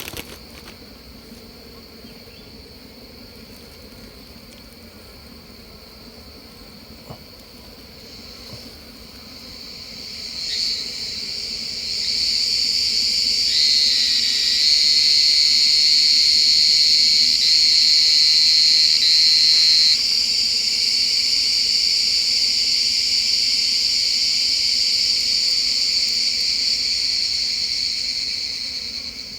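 Loud, steady, high-pitched insect drone that swells in about ten seconds in, holds, and fades near the end, over a faint low hum of bees buzzing around the opened hive.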